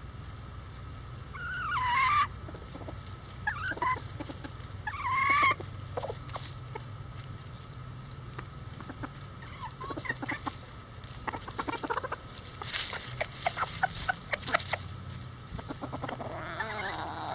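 Bantam chickens clucking and squawking, with loud calls a couple of seconds in and again about five seconds in. A quick run of short clicks follows in the middle, and more calls come near the end.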